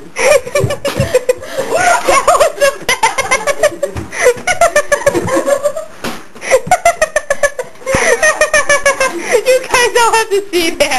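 People laughing hard close to the microphone, in rapid repeated bursts of giggles and belly laughs, with a brief lull about six seconds in.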